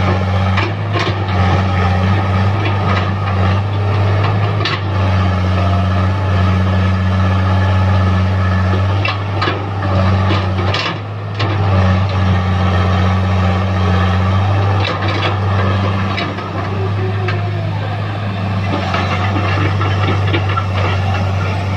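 Tracked excavator's diesel engine running steadily under load as it digs, with scattered knocks and clatter of the bucket and stones in rocky ground.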